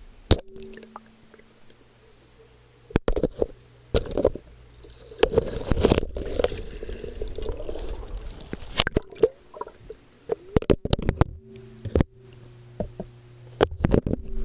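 Muffled knocks, bumps and jostling picked up by an underwater camera as a queen triggerfish seizes it and shakes it about, with a busy stretch of clattering in the middle. A low steady hum comes and goes between the knocks.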